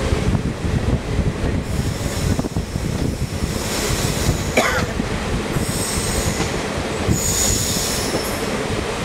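Passenger train running on curving track, heard from the carriage: a steady rumble and clatter of wheels on rail, with the wheels squealing high-pitched several times as they grind round the curve, and one sharp knock a little past halfway.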